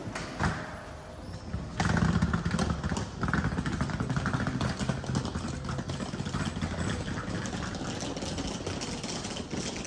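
A passenger train standing at the platform, its engine running with a steady low rumble that comes up suddenly about two seconds in, with light clatter over it.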